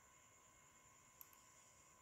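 Near silence with a faint steady high whine. Just past halfway comes a single computer click, heard as two quick ticks (button press and release).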